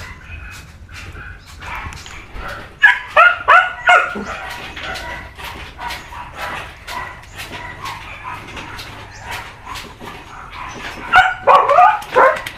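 Dachshunds barking in short, high yips: a quick run of four about three seconds in, and another burst near the end, with small clicks in between.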